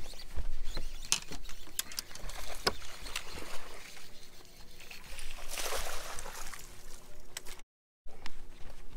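A bass splashing at the surface as it is scooped into a landing net, with a burst of thrashing water about six seconds in. Scattered knocks and clatter of the net pole and feet on the boat deck; the sound cuts out for a moment near the end.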